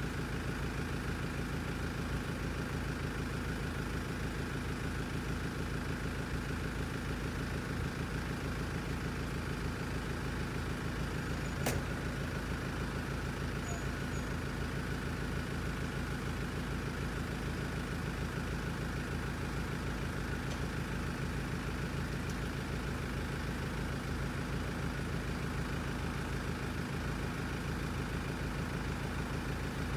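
A motor vehicle's engine idling steadily, with one sharp click about twelve seconds in.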